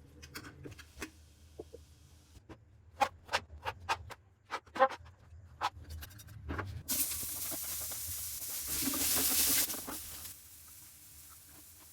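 Kitchen cooking sounds: a run of sharp taps and clicks, then, about seven seconds in, some three seconds of loud hissing that swells and then cuts off.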